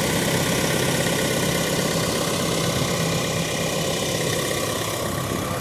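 A 2017 Chevy Cruze's turbodiesel four-cylinder engine idling steadily.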